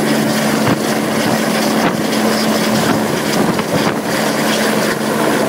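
Medical helicopter hovering just off its pad at lift-off: loud, steady rotor and turbine noise with a constant high whine on top.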